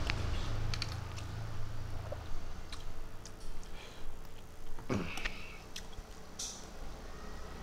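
Close-miked eating sounds of a man eating with his hand: chewing and wet mouth clicks, a louder gulp or smack about five seconds in, then drinking from a mug near the end.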